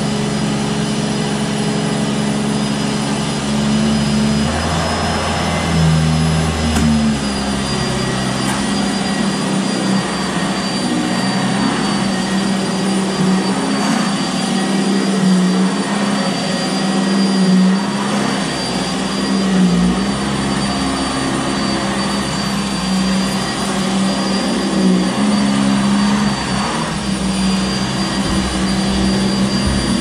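Sanitaire SC679J upright vacuum cleaner running on carpet: a steady motor whine and hum, the pitch dipping and shifting a few times as the nozzle is pushed and pulled across the pile.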